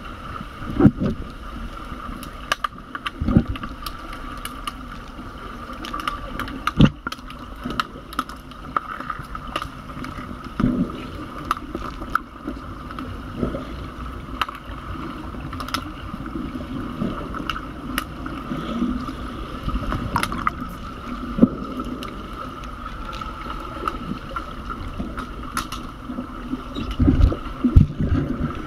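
Underwater sound of a swimming pool during an underwater hockey game: a steady muffled hum with scattered sharp clicks and knocks from sticks and puck on the pool floor, and a cluster of low thumps near the end.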